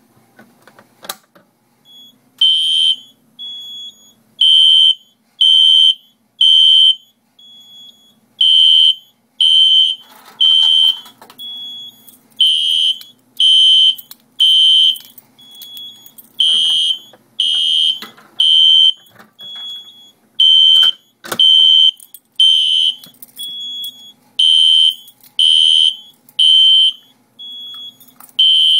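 SpectrAlert fire alarm horn sounding the temporal code-3 evacuation pattern: groups of three short, loud, high-pitched blasts about a second apart, each group followed by a longer pause. A quieter single beep falls in several of the pauses, and there are a few scattered clicks.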